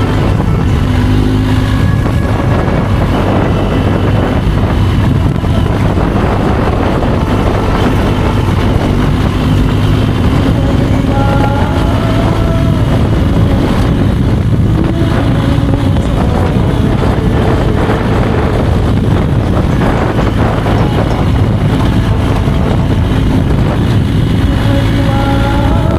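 BMW R1250GS boxer-twin engine running steadily as the motorcycle rides along, with wind noise on the microphone.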